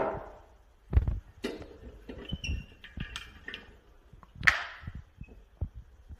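A few sharp knocks and clicks of handling on a desk, with faint rustling between them; the loudest come about a second in and about four and a half seconds in.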